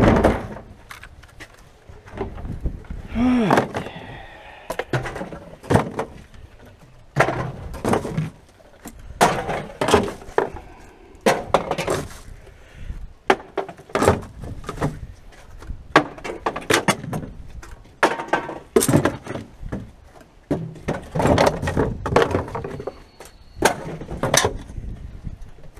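Irregular knocks, thuds and clattering from rummaging through a rubbish bin and handling its contents.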